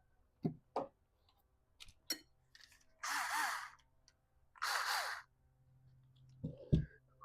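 Small carburetor parts clicking and knocking as they are handled during disassembly, with two short bursts of blown air about three and four and a half seconds in.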